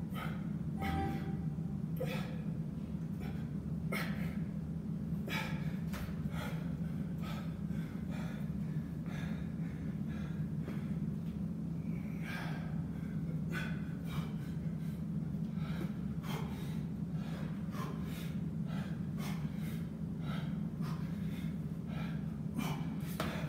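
A man breathing hard from exertion during dips and pull-ups, with sharp exhales and gasps every second or so, over a steady low hum.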